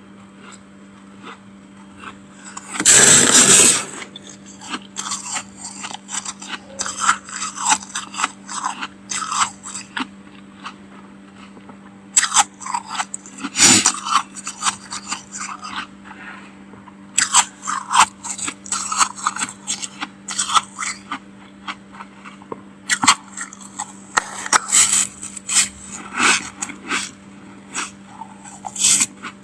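Spoon scraping and scooping through thick freezer frost: a long run of short, crisp crunches, with one loud, longer scrape about three seconds in. A steady low hum runs underneath.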